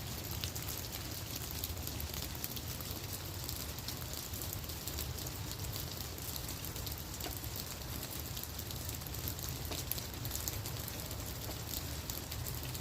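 Steady rain falling on leaves and the ground: a dense patter of many small drops. A steady low rumble runs underneath.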